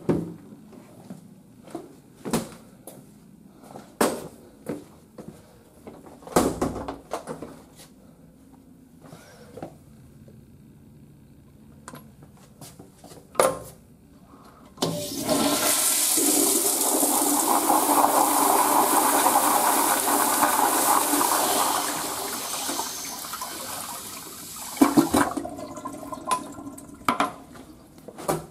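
Several short knocks and clicks, then about 15 seconds in a 1971 Crane Placidus toilet's flush valve opens and the flush rushes loudly for about seven seconds before tapering off. A few more knocks come near the end.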